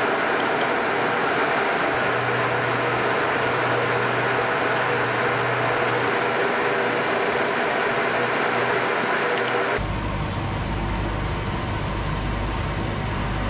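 Steady hum of cooling fans and electronic equipment inside an air-defence control cabin. About ten seconds in it cuts sharply to a steady low rumble.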